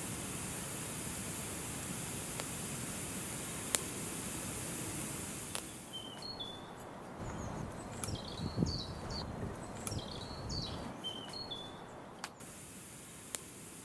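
Wood campfire burning with a steady hiss and a few sharp crackles. About six seconds in, a songbird sings a short chirping phrase about four times, one every second and a half or so, over quiet woodland ambience.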